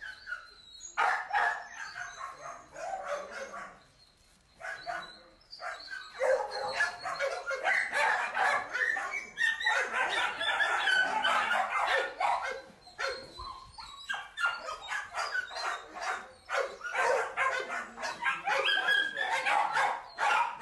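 American Staffordshire Terrier dogs barking and yipping over and over, with a brief lull about four seconds in and another near the middle.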